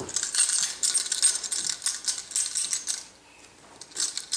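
A bunch of keys jangling, shaken in quick bursts for about three seconds and again briefly near the end: light metallic jingling used to coax a toddler to walk toward them.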